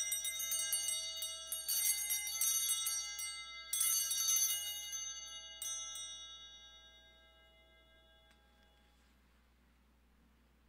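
Altar bells, a cluster of small handbells, shaken in three strong bursts of rapid jingling about two seconds apart and a short fourth shake, then ringing away to nothing over a few seconds. They mark the elevation of the host at the consecration.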